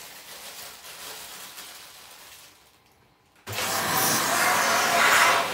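Black plastic bin bag rustling as it is gathered around someone's neck, then about three and a half seconds in a vacuum cleaner switches on suddenly and runs steadily, sucking the air out of the bag through its hose.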